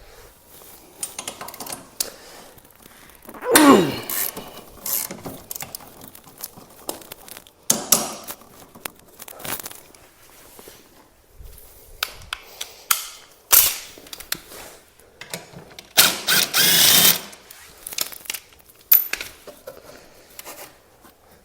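Hand tools and parts being handled while working on a motorcycle: scattered clicks and clanks, with a short squeak falling in pitch about four seconds in and a longer scraping rasp around sixteen seconds in.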